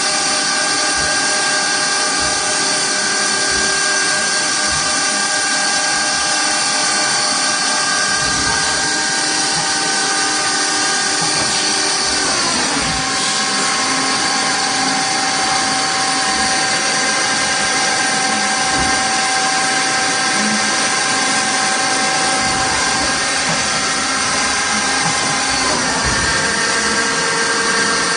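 Hardinge Cobra 42 CNC lathe running: a steady machine whine that glides down in pitch about twelve seconds in and back up again near the end.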